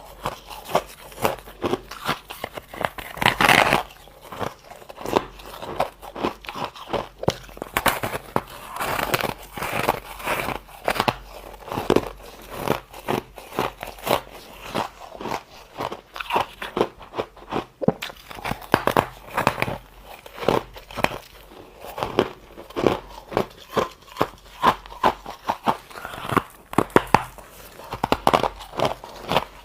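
Close-up crunching of soft, powdery freezer-frost ice being bitten and chewed, a steady run of sharp crackling crunches with a few louder bites.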